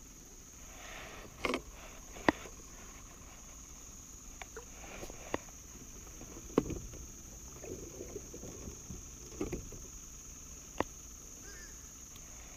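Scattered sharp clicks and knocks of fishing tackle being handled in a small boat, over a steady high-pitched insect drone.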